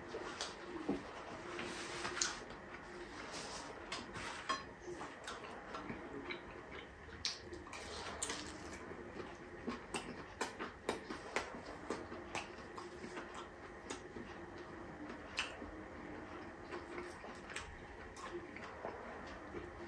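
Close-up eating sounds as food is eaten by hand from a plate: chewing, with many scattered sharp clicks and light taps.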